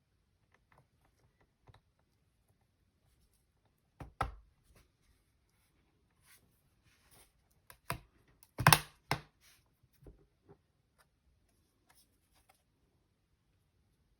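Scattered small clicks and taps of hands handling a Dell XPS 15 laptop and its parts, with a sharper knock about four seconds in and a louder cluster of knocks around eight to nine seconds in.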